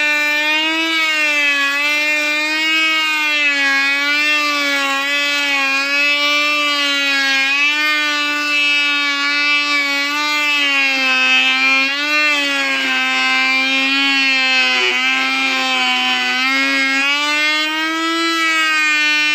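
Table-mounted router spinning a molding bit, a steady high whine as a wooden strip is fed through the cut. The pitch sags slightly under load in the second half and comes back up near the end as the cut eases.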